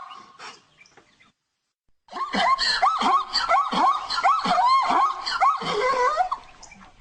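Zebra calling: a rapid series of high, yipping barks, several a second, that fades out, stops for about a second, then starts again and fades near the end.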